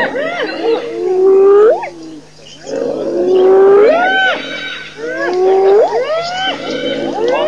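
Several spotted hyenas calling over one another in rising and falling yelps and whoops, the excited calls of a clan mobbing a lioness, with a brief lull about two seconds in.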